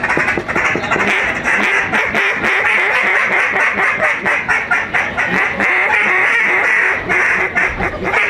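A hand-blown duck call, a fast run of quacking notes blown with straight hot air rather than grunting.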